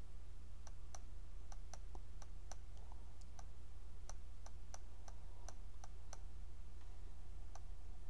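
Small sharp clicks, irregularly spaced and a few a second, all alike, typical of a camera's autofocus motor hunting for focus. A steady low hum runs underneath.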